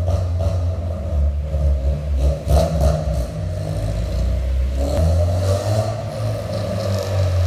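Honda Civic Si's K20Z3 four-cylinder engine running through a loud exhaust, a steady low drone with the revs rising and falling slightly, and a few brief sharp cracks about two and a half to three seconds in.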